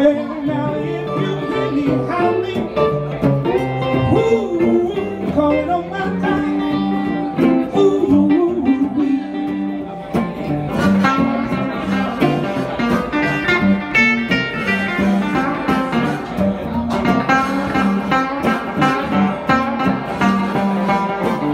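Live electric blues played on two hollow-body electric guitars, one a Gibson ES-175, through small amplifiers, with a harmonica wailing sustained and bent notes over them.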